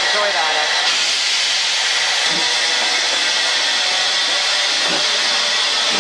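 Small saddle-tank steam locomotive standing in steam, with a loud, steady hiss of escaping steam.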